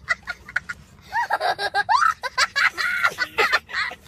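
A child laughing, in repeated peals that rise and fall in pitch.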